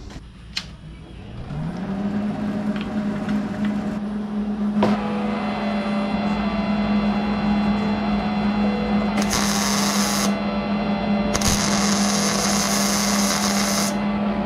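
Welding on the car's frame rail, sizzling in three bursts over the last five seconds. Under it, a steady hum rises to pitch about a second in and holds.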